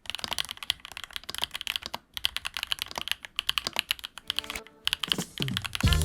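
Typing on a Nuphy Field75 mechanical keyboard: a fast, irregular run of keystroke clacks. Music fades in under the typing about four seconds in.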